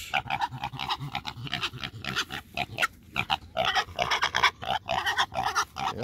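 Young piglet talking on and on in a rapid string of short calls: an unhappy piglet complaining.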